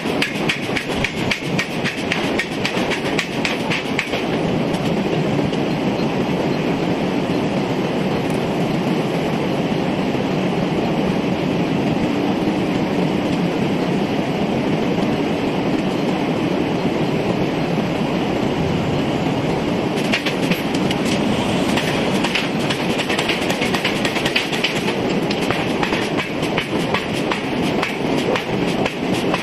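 Heavy forging machinery running, with rapid, irregular metallic clanking over a steady mechanical din.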